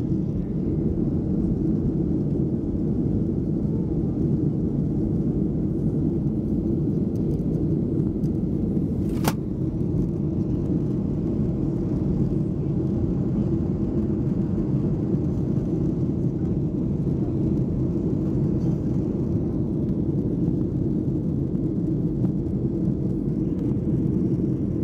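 Steady cabin noise inside a Boeing 737-900 climbing after takeoff: its CFM56-7B turbofans and the airflow make a dense, even low rumble. A single sharp click about nine seconds in.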